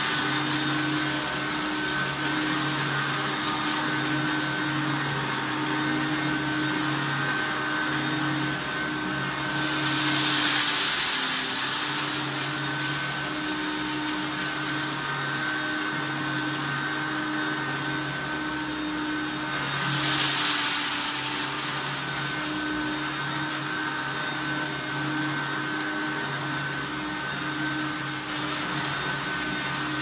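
1988 Hoover Turbomaster U4362 softbag upright vacuum cleaner running steadily as it is pushed over carpet, a constant motor hum with a hiss that swells louder about every ten seconds.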